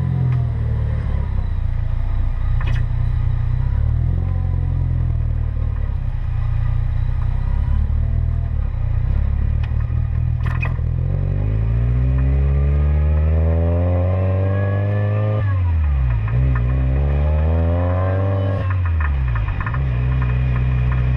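Car engine running while driving. It holds a steady low drone, then about twelve seconds in it revs up, drops back sharply, revs up again and drops back, as it shifts up through the gears, before settling to a steady drone. A few single clicks come over it.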